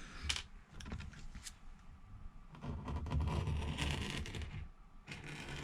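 Light handling noises at a repair bench: a couple of sharp clicks in the first second and a half, then about two seconds of rustling and scraping in the middle, as glue is being applied around a tablet's frame.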